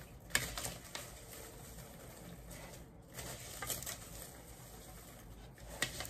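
Popcorn rustling quietly as it is stirred with a plastic spoon in a plastic mixing bowl, with a few sharp light clicks scattered through.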